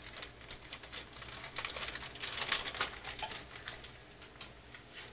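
Plastic wrapper of a cheese slice crinkling and crackling as it is peeled open by hand. Irregular small crackles come thick for the first three and a half seconds, then thin out.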